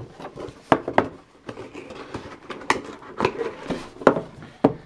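Drone box packaging being handled: a string of sharp clicks and knocks with light rustling as the contents are taken out.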